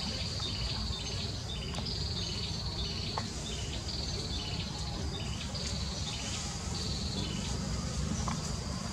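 Forest insects calling: a high-pitched trill repeated every second or two, each phrase followed by short lower stepping notes, over a steady low rumble.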